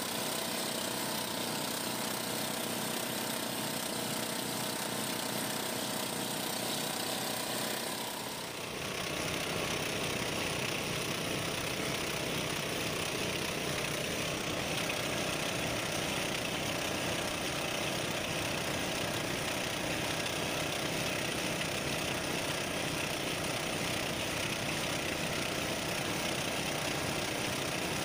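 Outrigger boat's engine running steadily while the boat is under way; the sound dips briefly and shifts about eight seconds in, then runs on evenly.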